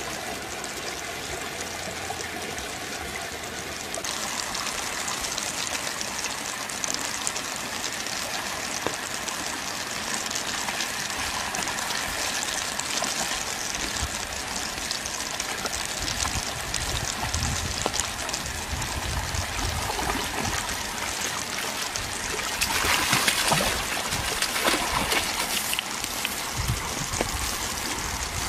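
Steady rush of a fast-flowing stream, growing louder a few seconds in, with a louder surge about three-quarters of the way through.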